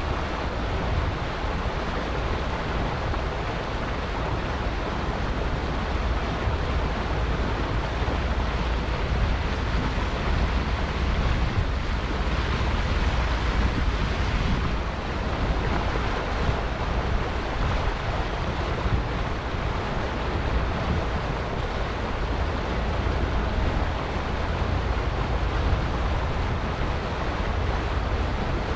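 Wind buffeting the microphone over the steady wash of water from a motor cruiser under way: a constant rushing noise with a deep rumble underneath.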